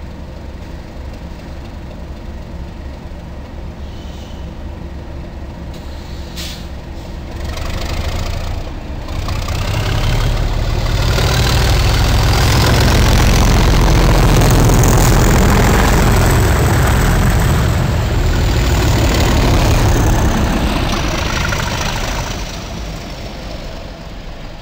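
English Electric Class 37 diesel locomotive under power pulling its train past, its V12 engine a steady low rumble at first. The sound grows louder from about eight seconds in, is loudest while the locomotive and coaches go by, and fades near the end. Over the engine a high whistle climbs and then falls away: the turbocharger whistle typical of a Class 37.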